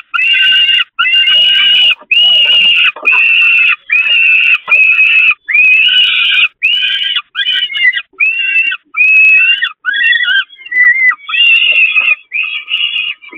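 Peregrine falcon chicks begging for food at the nest with loud, drawn-out calls, one after another about once a second, becoming more broken and uneven near the end.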